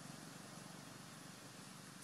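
Near silence: faint, steady background noise with a low hum and no distinct sounds.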